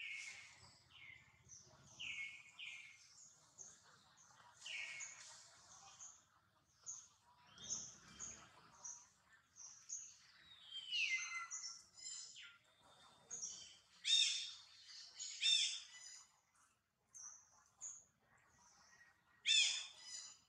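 Birds chirping and calling: many short, high chirps in irregular succession, with a few louder calls that sweep downward, the loudest coming about two-thirds of the way in and again near the end.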